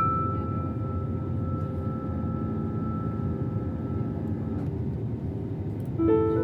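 Steady rushing drone of an airliner's engines heard from inside the cabin, under a held piano note that fades away; new piano notes come in near the end.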